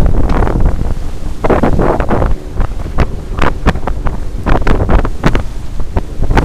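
Wind buffeting the microphone hard in gusts, over the rush and splash of the bow wave along a sailing yacht's hull as it sails at speed.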